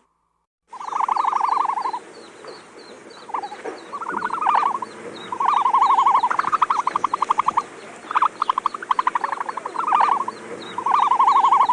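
Animal calls: a string of rapidly pulsing trills, each about a second long and sometimes overlapping, over a faint, regular high chirping. They begin after a brief dead silence near the start.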